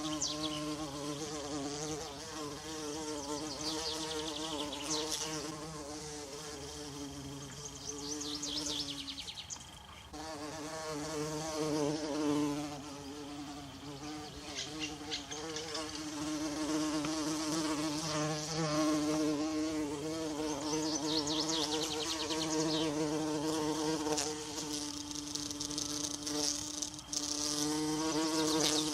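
Bumblebee buzzing in flight, a droning hum that wavers in pitch and drops away briefly about nine seconds in. Short, high trills come and go in the background.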